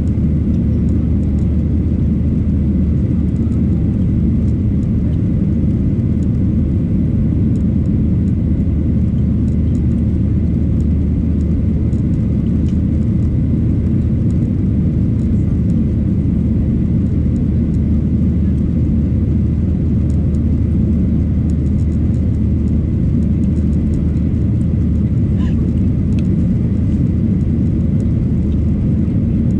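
Steady low rumble of a Boeing 737-800's CFM56 jet engines and airframe, heard inside the passenger cabin, with a faint high steady whine above it.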